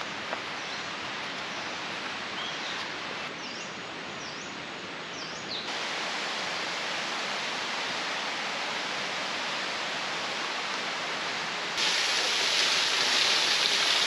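Steady rush of a forest stream, with a few short bird chirps about four seconds in. The water sound grows abruptly louder near the end.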